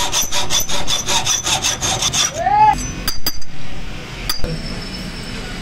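Hand hacksaw cutting a steel shock-absorber tube held in a vise, in quick, even rasping strokes that stop a little over two seconds in. A few sharp metallic clicks follow.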